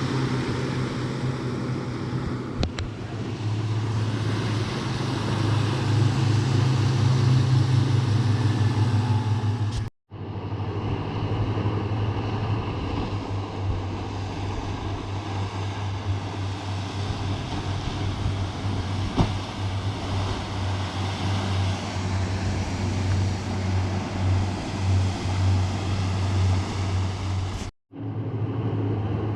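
A boat's outboard motor running steadily, its low hum over a rushing haze of wind and water. The sound cuts out abruptly twice, once about a third of the way in and again near the end.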